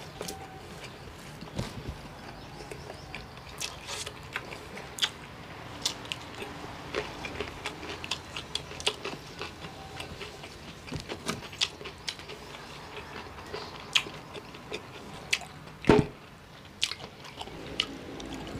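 Close-up chewing and mouth sounds of a person eating with their hands, with many short smacks and crunches. One louder knock comes about sixteen seconds in.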